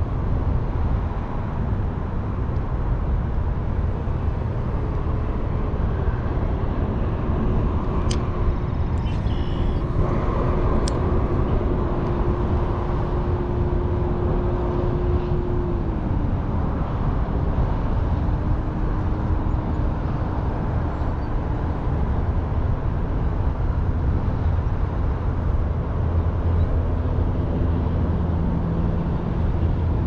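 Steady low outdoor rumble of wind and distant road traffic, with a passing engine's drone that holds one pitch, then slides down about halfway through and carries on lower. Two sharp clicks come about a third of the way in.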